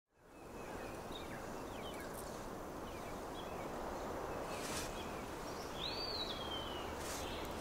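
Outdoor woodland ambience fading in from silence: a steady low rushing background with a few faint bird chirps, and one clearer bird call about six seconds in that rises and then slides down in pitch.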